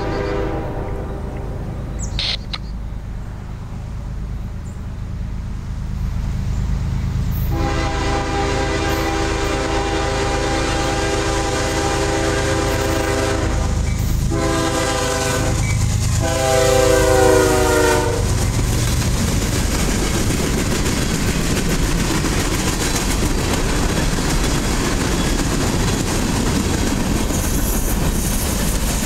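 CSX GE ES40DC locomotive's multi-tone horn sounding for the grade crossing. One blast dies away just after the start. A long blast begins about 7 seconds in, and two short gaps break it into three blasts, the last the loudest, ending about 18 seconds in. The locomotive and its train then rumble and clatter past close by.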